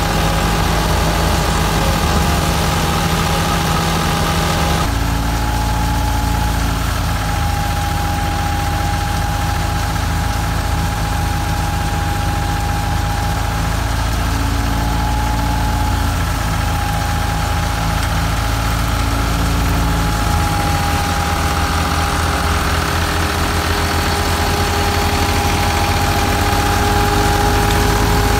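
Ford 4610 tractor's three-cylinder diesel engine running steadily under load, driving a wheat thresher through its PTO shaft, with a steady high whine from the running machinery over the engine. The sound shifts abruptly about five seconds in and again about twenty seconds in.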